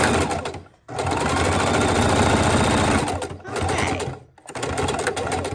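Electric sewing machine running in stop-start runs while top-stitching through fabric and batting: it stops briefly just under a second in, runs steadily again until about three seconds, then sews two shorter runs near the end as the seam is finished.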